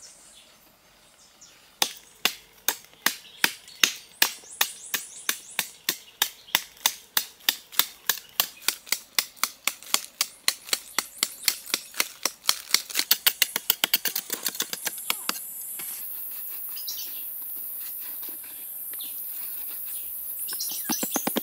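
Metal digging blade chopping into hard, dry packed earth in a fast, regular run of strikes, about three to four a second. The strikes start about two seconds in and stop about two-thirds of the way through. A rapid flurry of small scraping clicks follows near the end.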